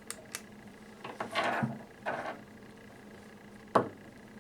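Small handling noises of jumper wires and a breadboard: faint clicks and soft rustles, with one sharper click a little before the end.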